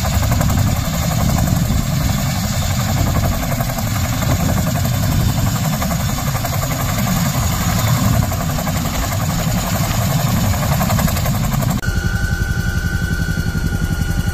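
CH-47 Chinook helicopter running on the ground: a loud, steady rush and rumble of turbines and turning rotors. About twelve seconds in it cuts to the inside of the cabin in flight, where the rotors make a rapid, even beat under a steady high whine.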